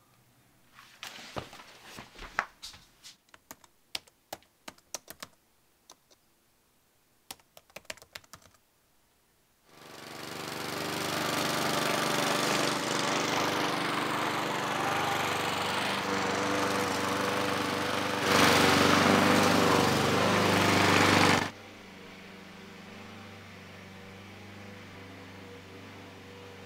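Irregular bunches of light clicks, like typing on a laptop keyboard, for the first nine seconds or so. Then a small gasoline lawn mower engine starts up and runs loud and steady, louder still for a few seconds. About twenty seconds in it drops to a quieter, muffled steady drone, heard from indoors through the window screen.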